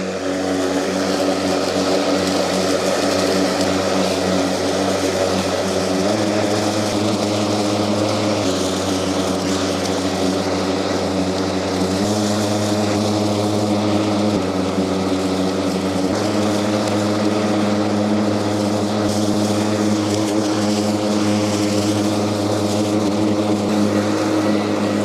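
Kärcher battery-powered commercial rotary lawn mower running at maximum blade speed while cutting and collecting grass: a steady electric motor-and-blade hum whose pitch shifts slightly up and down a few times.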